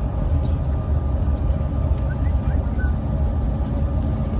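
Steady low cabin rumble inside a Bombardier CRJ-700 jet rolling on the ground after landing: rear-mounted turbofan engines and the wheels on the pavement, with a faint steady hum above the rumble.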